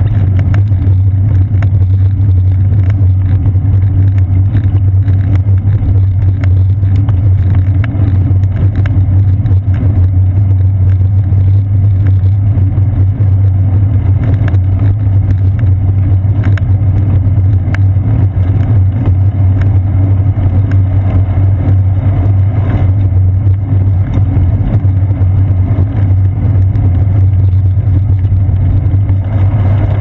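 Steady low rumble of wind and road vibration picked up by a seat-post-mounted GoPro Hero 2 on a moving bicycle, with faint scattered ticks from bumps in the pavement.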